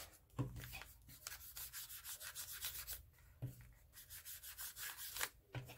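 Small round ink blending tool rubbed in quick, short strokes over the edges of coffee-dyed paper, dabbing on Black Soot distress ink: a faint, repeated scuffing, with about three soft knocks among the strokes.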